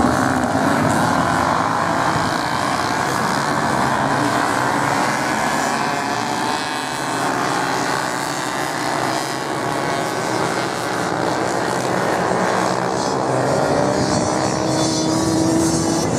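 A pack of off-road motorcycles racing on sand: many engines running hard at once, their pitches sliding up and down as they rev and shift.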